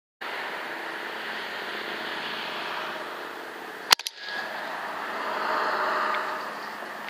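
A single sharp air rifle shot about four seconds in, with a smaller crack right after it, over a steady background hiss.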